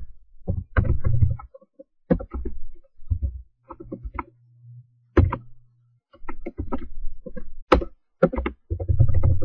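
Computer keyboard typing: irregular keystroke clicks in quick runs separated by short pauses.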